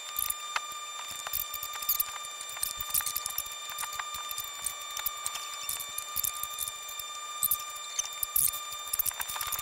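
Sped-up recording of stage activity: a constant high whine under a rapid, irregular scatter of tiny clicks and squeaks.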